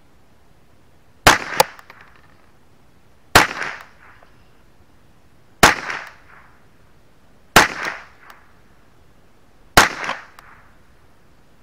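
Ruger 10/22 semi-automatic rifle firing .22 LR at a slow, steady pace: five sharp shots about two seconds apart. Each shot is followed within about a third of a second by a fainter second crack.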